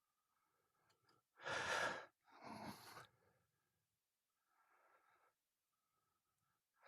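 Mostly quiet, broken by a few short breathy sounds of a person breathing: the loudest about a second and a half in, a fainter one just after it, and a faint one near the end.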